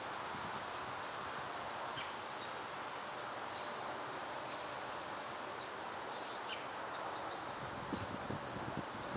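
Outdoor breeze moving through autumn tree foliage: a steady hiss of rustling leaves, with a few faint high chirps partway through and louder irregular rustling near the end.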